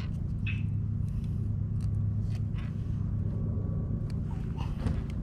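A steady low rumble, with small clicks and rattles from handling a caught fish and working a frog lure out of its mouth.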